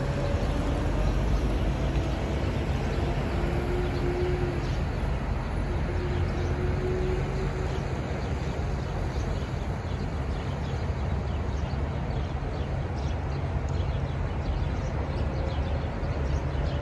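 Steady low rumble of semi-truck diesel engines idling, with a faint drifting whine in the first several seconds as a tractor-trailer pulls away.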